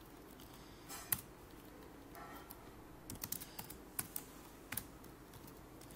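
Faint typing on a computer keyboard: a lone keystroke about a second in, then an uneven run of keystrokes in the second half.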